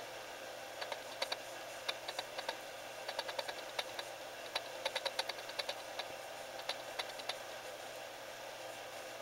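A small animal scratching and clicking inside a wall: irregular clusters of light, sharp clicks for several seconds that stop about seven seconds in.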